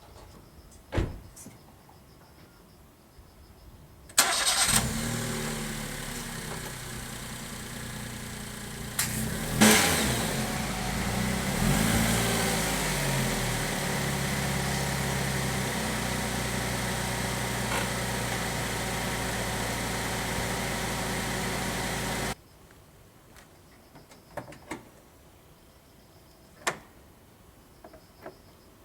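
Daihatsu Copen LA400K's turbocharged three-cylinder engine starting up about four seconds in. It runs at idle with a couple of short revs and is switched off abruptly after about eighteen seconds. A click comes before the start and a few light clicks come after it stops.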